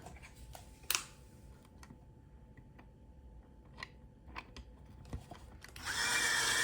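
Small clicks and taps of plastic mirror parts being handled. Near the end, a cordless power drill starts up and runs steadily with a constant whine, driving a screw into the mirror housing.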